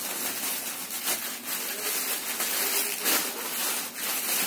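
Clear plastic garment packaging rustling and crinkling as it is handled, with irregular small crackles.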